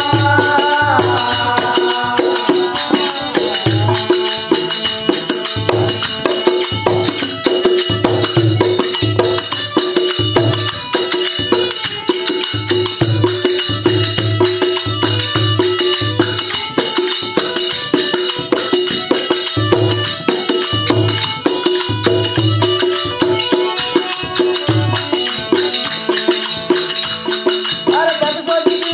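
Rajasthani devotional bhajan played live: a harmonium holding steady notes over a dholak beating a regular rhythm, with jingling metal percussion on top. Singing voices are heard in the first couple of seconds and come back near the end; in between the instruments play on their own.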